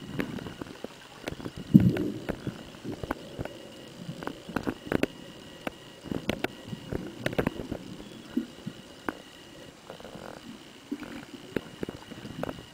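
Underwater sound picked up through a camera housing as a freediver fins down: scattered sharp clicks and muffled low rushes of water, the strongest about two seconds in, over a faint steady high tone.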